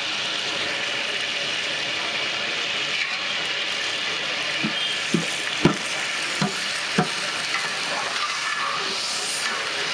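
A long metal ladle stirring spiced water in a large aluminium cooking pot, over a steady hiss. Near the middle it knocks against the pot about five times.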